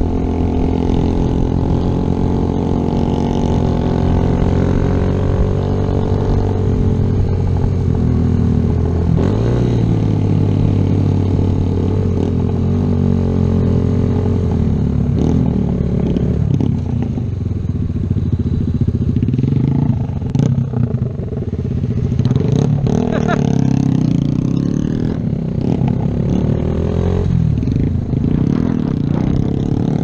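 Kawasaki Z125's small single-cylinder four-stroke engine running under way at a steady cruise, with its pitch dropping and picking up again about ten seconds in and once more about twenty seconds in as the throttle is eased and opened.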